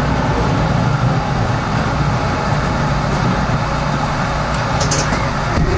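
Steady low rumble of a subway train moving past on the adjacent track, heard from inside a subway car standing at the platform, with a brief high hiss near the end.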